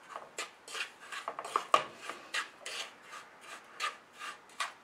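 Wooden spatula scraping damp sugar around a non-stick frying pan, gritty strokes about three times a second, with one sharper click of the spatula a little under two seconds in.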